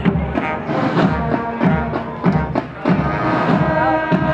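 Brass band playing a march: brass chords over a steady bass drum beat, about two beats a second.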